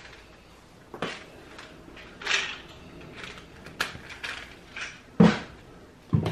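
Short knocks and clicks of bottles and dishes being handled on a glass-top breakfast table, with a soft rustle a little over two seconds in and a louder, deeper thump about five seconds in.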